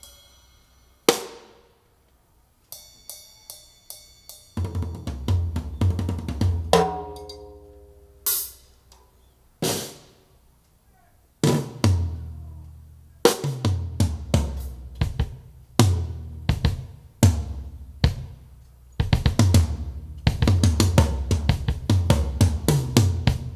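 Drum-heavy test music, with kick drum, snare and cymbals, played through a woofer driver whose torn rubber surround has been patched with layers of tissue paper. The uploader thinks it still sounds faulty after the repair. Sparse single hits in the first few seconds give way to steady drum patterns with a strong bass.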